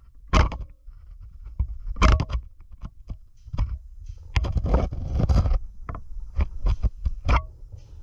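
Irregular scraping and knocking from movement against the microphone, over a low rumble, with a thicker burst of rustling about halfway through.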